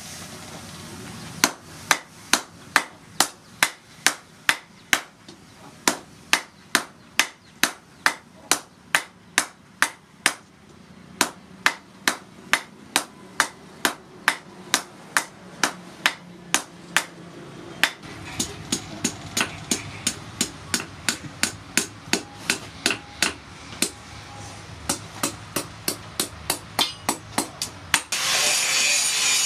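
Hand hammer striking hot spring steel on a steel post anvil, about two to three sharp blows a second in runs broken by short pauses, while a sugarcane cutter blade is forged. Near the end the blows stop and a louder steady noise takes over.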